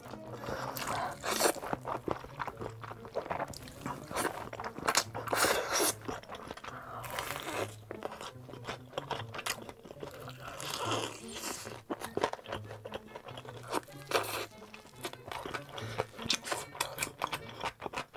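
Close-miked eating: crunchy bites into crispy fried chicken and chewing, with spicy noodles sucked in, as irregular sharp crunches. A steady low music beat runs underneath.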